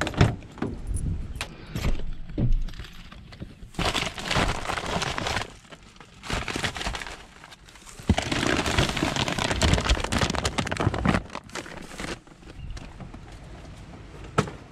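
A pickup truck's rear door latch clicking open, then rustling, crinkling and knocking as packed bags and gear in the back seat are shifted around by hand.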